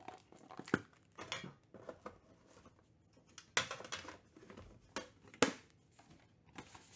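Trading cards being handled and set down on a tabletop: a series of light taps, slides and rustles, with sharper clicks about three and a half and five and a half seconds in.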